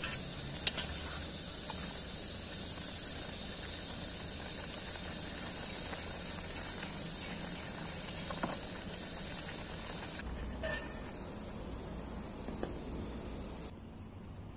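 Pot of black-eyed peas boiling hard, with a steady high hiss, and a metal spoon clinking once against the pot shortly after the start. The hiss stops suddenly near the end.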